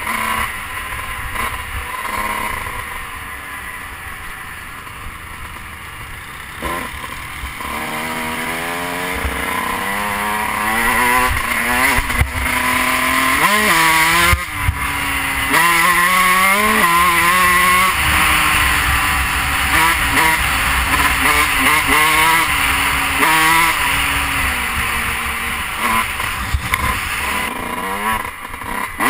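Dirt bike engine heard from the rider's helmet camera, revving up through the gears: the pitch climbs and drops back at each shift, getting louder from about eight seconds in. Wind noise hisses over the microphone throughout.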